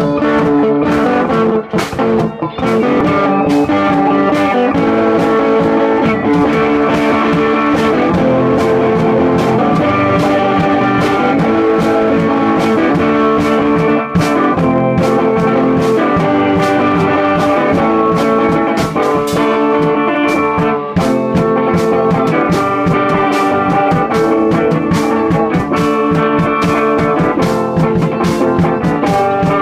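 Rock band playing loud and live: two electric guitars over a Tama drum kit keeping a steady beat. It is a rough run-through of a new song.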